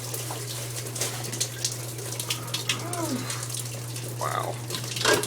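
Water leaking into a flooding apartment, splashing and dripping steadily, over a steady low hum.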